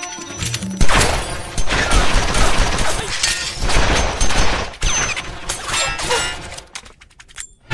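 Rapid volley of revolver gunfire: many shots in quick succession, with bullet impacts among them. It starts about a second in and dies down shortly before the end.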